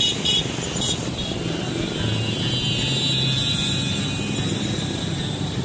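Background music laid over steady street noise.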